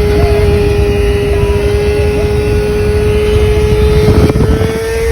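A motor vehicle's engine running at a steady pitch, with heavy wind rumble on the microphone; the pitch rises slightly near the end.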